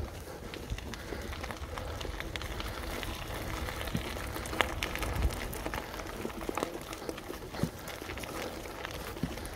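Mountain bike rolling fast over a dirt forest trail: tyres crunching on packed dirt and dead leaves, with many short clicks and rattles from the bike over bumps and a low rumble throughout.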